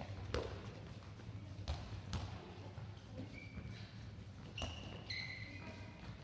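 Handballs bouncing on a sports-hall floor and smacking into hands: several sharp thuds, the loudest just after the start. Between them come a few brief high squeaks of training shoes on the court.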